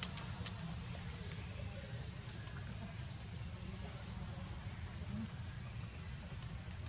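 Steady high-pitched drone of insects over a low rumble.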